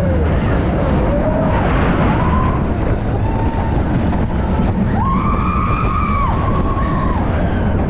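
Expedition Everest roller coaster in motion: a loud, steady rumble of the train on its track mixed with wind rushing over the microphone. Over it riders yell in long rising-and-falling whoops, the longest about five seconds in.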